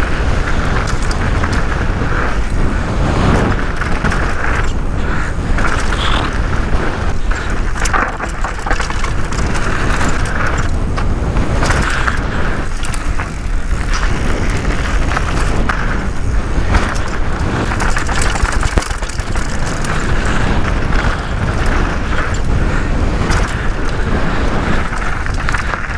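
Downhill mountain bike descending a dry, gravelly dirt trail: steady wind rush over the action camera's microphone, with tyres crunching over loose stones and many short rattles and knocks from the bike over bumps.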